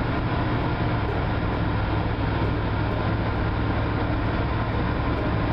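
Pickup truck driving at road speed, heard from inside the cab: steady engine and tyre noise with a low, even drone.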